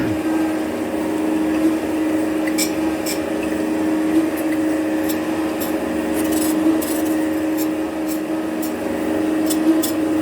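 A steady machine hum with scattered light clicks and ticks over it.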